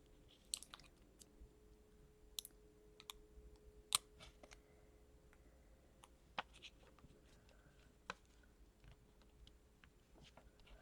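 Faint, scattered clicks and small taps of paper craft pieces being handled as the eyes are separated and pressed onto a paper bookmark, the sharpest click about four seconds in.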